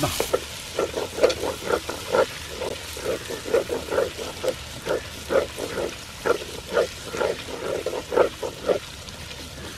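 Wooden spatula stirring sliced onions and shallots frying in oil in a pot, scraping in quick strokes about twice a second over a faint sizzle. The strokes stop shortly before the end.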